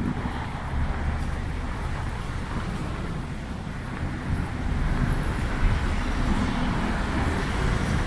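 Road traffic noise: a steady rumble of passing cars that gets a little louder about halfway through.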